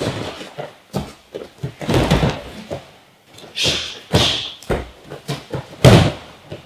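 Sparring on padded gym mats: a string of thuds and slaps from gloved strikes, feet stepping and bodies colliding, then a loud, heavy thud of a body slammed down onto the mat about six seconds in.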